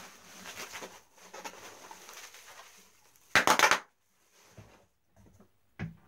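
Bubble wrap and plastic packaging rustling as they are pulled out of a cardboard box, with one loud half-second crackle a little past the middle.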